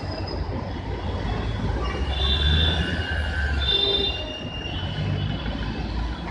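Train running on rails: a low rumble with high-pitched wheel squeals that swell and fade a few times.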